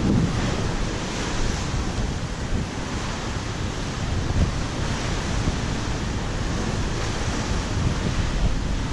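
Steady rushing noise of wind and moving water, with no distinct knocks or tones.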